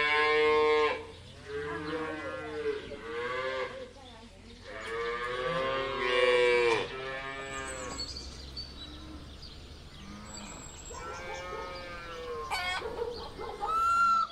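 Cattle mooing: a run of high-pitched, calf-like moos over the first seven seconds, then a fainter moo a few seconds later. A peacock's call begins right at the end.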